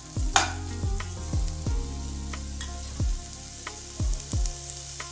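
Onions and ginger-garlic paste sizzling in hot oil in a non-stick kadai, with a steel spatula stirring and a sharp clack against the pan about half a second in. Background music with a deep, repeated falling bass beat plays underneath.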